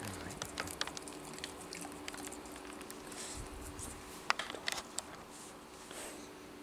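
A dog sniffing and licking right at the microphone: soft wet clicks and rustling, with a few sharper clicks about four to five seconds in.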